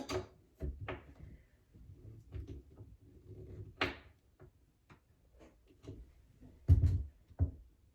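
Scattered clicks and knocks of a Phillips screwdriver and hands working at a cabinet door while a knob's screw is tightened, with a heavier thump against the cabinet about seven seconds in.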